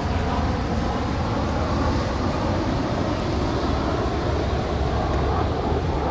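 Lockheed T-33 Shooting Star's single turbojet engine running as the jet flies by, a steady, unbroken noise with a deep low rumble and faint humming tones in it.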